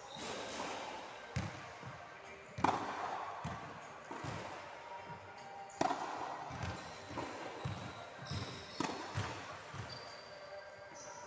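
Tennis rally on a wooden sports-hall floor: rackets striking the ball and the ball bouncing, with sharp hits about every three seconds and softer thuds between, echoing in the large hall.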